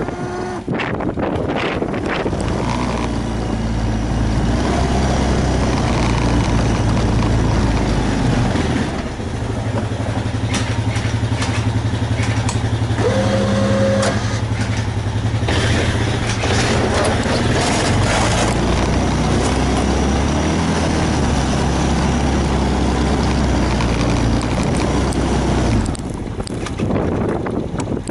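An engine running steadily, its pitch shifting a couple of times, over a rushing noise.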